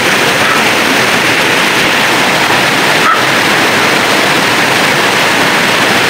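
Steady rush of a rocky river's water running over stones. A dog gives a short bark about three seconds in.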